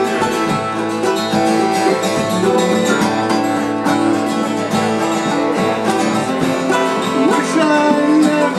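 Acoustic guitar strumming chords while a mandolin and a fiddle play the tune, in a folk style, with held fiddle notes over the strumming.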